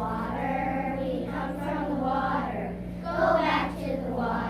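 A group of young children singing a song together in unison, over a steady low hum.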